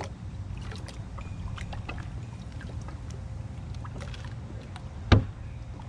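Small knocks and clicks on a bass boat's deck over a steady low rumble, with one sharp thump about five seconds in.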